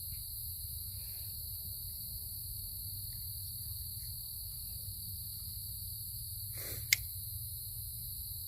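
Steady night-time chorus of crickets, with a low hum underneath. About seven seconds in there is a brief rustle and then a single sharp snip of wire cutters cutting through wire.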